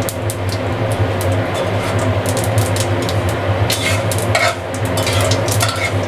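Mustard seeds and dried red chillies frying in hot mustard oil in an aluminium pan, with many small crackles and pops, while a metal spatula stirs and scrapes the pan. A steady low hum runs under it.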